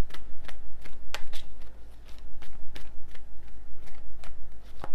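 A deck of cards being shuffled by hand: a rhythmic run of soft slaps and riffles, about three to four a second, easing briefly about two seconds in.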